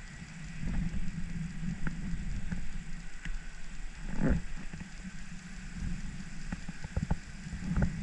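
Handling noise from unhooking a small bluegill held in the hands: scattered clicks and knocks over a steady low rumble, with one louder rustle about four seconds in.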